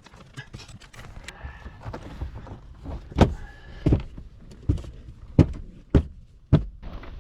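Light clicking and handling of plastic parts, then six loud knocks about two-thirds of a second apart from about three seconds in, as the dashboard trim of a 2015 Cadillac SRX is tapped into its clips.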